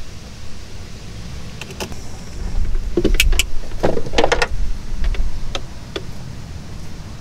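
Sharp clicks and small rattles from crimping pliers and crimp connectors while radio power wires are joined under a dashboard. The clicks are bunched about three to four and a half seconds in, over a low steady rumble.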